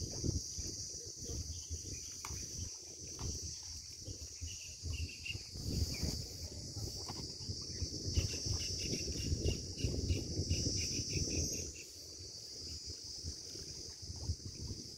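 Steady high-pitched drone of insects, with a quicker pulsing chirp coming in twice, about five seconds in and again from about eight to eleven seconds, over a low, uneven rumble.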